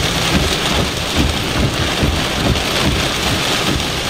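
Heavy thunderstorm rain beating on a vehicle's windshield and roof, heard from inside the cab as a steady dense hiss with an irregular low rumble underneath.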